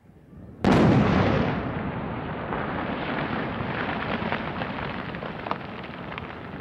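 Dynamite blast: a sudden loud boom about half a second in, followed by a long noisy rumble that slowly fades, with a few faint clicks near the end.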